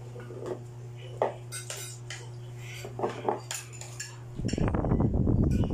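Light plastic clinks and taps, scattered and irregular, as a toddler handles a plastic bowl and a small utensil, over a low steady hum. About four seconds in, a loud rough rustling noise suddenly takes over.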